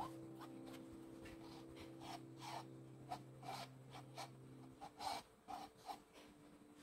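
Metal palette knife scraping and dabbing thick acrylic paint on a stretched canvas: a series of short, irregular, soft scrapes.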